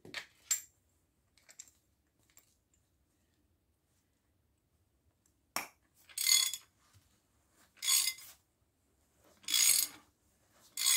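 Ratchet wrench turning the threaded rod of a bearing press tool, drawing a new wheel bearing into a Chevrolet Aveo steering knuckle. A few light metal clicks as the tool is set up, then, from about halfway in, a run of short ratcheting strokes about every second and a half.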